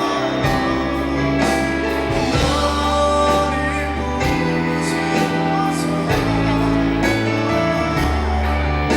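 Live performance of a Korean pop ballad: band accompaniment with a held bass line that changes note about every two seconds, with singing over it.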